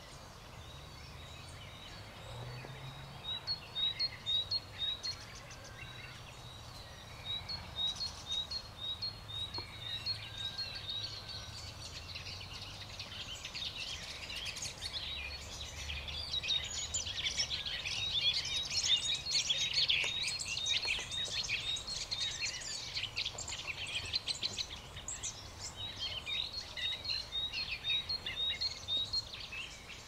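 Spring dawn chorus of songbirds. A regular series of short high chirps repeats at first; about twelve seconds in, several birds join in a dense, louder tangle of song that thins back to the repeated chirps near the end.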